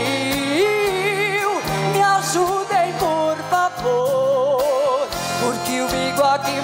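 A woman singing live into a microphone, holding and gliding through notes with a wide vibrato, over a band with a steady drum beat.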